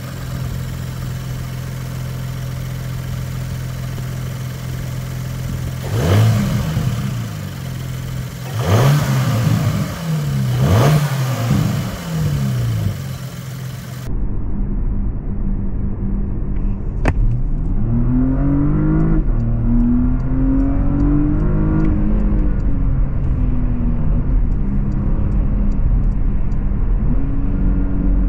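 Porsche Panamera 4S's 2.9-litre twin-turbo V6 with sport exhaust idling steadily, then blipped three times in quick succession, each rev rising and falling. Then, heard inside the cabin, the engine pulls under acceleration, its pitch climbing through the gears before settling to a steady cruise.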